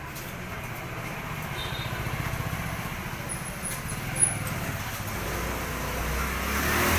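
Small motorbike engine running as it comes towards the microphone, growing louder towards the end. A single sharp knock about four seconds in.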